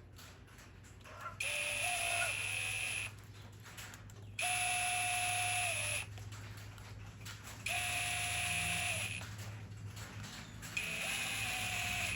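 Small electric screwdriver motor whining in four separate runs of about a second and a half each, driving in the screws that hold a carburetor's primer bulb and metering assembly together.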